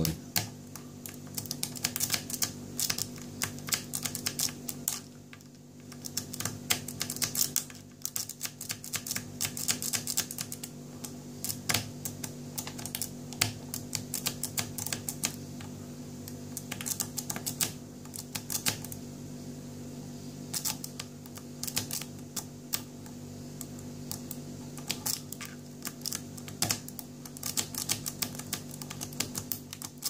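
Lock-pick rake scrubbing in and out of the keyway of a cheap three-wafer Korjo TSA luggage lock, making a fast, irregular run of small metallic clicks and scratches with brief pauses around five and eight seconds in. Under it runs a steady low hum.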